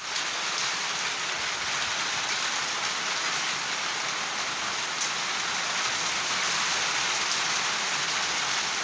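Heavy rain falling steadily on leafy trees and bare earth, an even, unbroken hiss.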